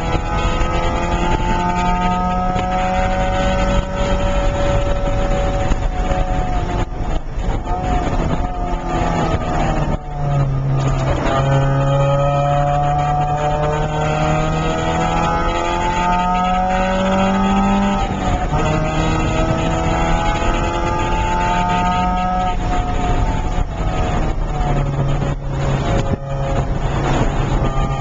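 1995 Porsche 968's 3.0-litre inline-four engine heard from inside the cabin at racing speed. Its pitch climbs steadily under hard acceleration, drops sharply about ten seconds in and again near eighteen seconds, then climbs again.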